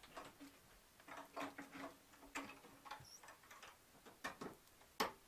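Light, irregular clicks and knocks of someone moving about and handling things inside the cabin, heard through the open doorway, with the sharpest knock about five seconds in.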